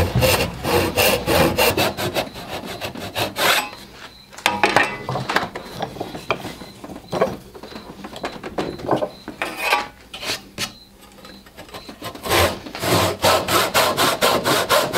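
Backsaw rip-cutting a tenon cheek down the end grain of a wooden board clamped in a vise, in quick, even push-pull strokes. The strokes stop and start a couple of times, with a sharp knock about four and a half seconds in, then run steadily again near the end.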